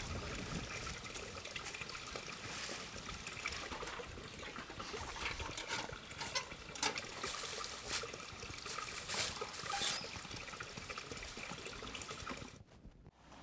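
Spring water trickling steadily, with scattered short rustles and crackles of footsteps in dry leaves; the sound drops out briefly near the end.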